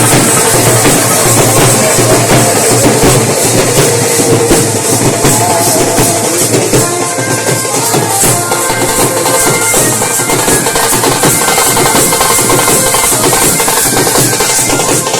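Indian wedding band (band baaja) playing very loud: fast, dense drumming with jingling cymbals over a few held melody notes.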